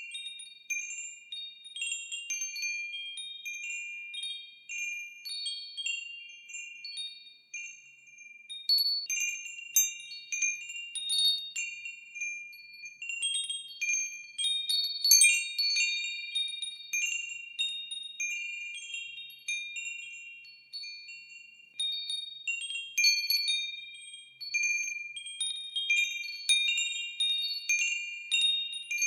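Wind chimes ringing, with many high, overlapping notes struck at irregular moments as they sway. The strikes come in gusts: sparse at first, busy through the middle, calmer for a few seconds, then busy again near the end.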